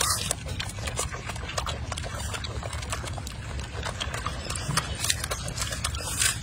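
Golden snub-nosed monkey chewing on a piece of orange: a run of short, irregular clicks and smacks of its mouth, over a steady low hum. A brief louder noise comes near the end.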